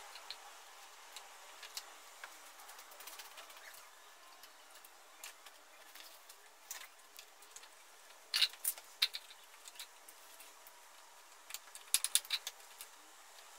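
Scattered light clicks and clinks from hand work under a motorcycle's engine, in two short clusters at about eight and twelve seconds in, over a faint steady hiss.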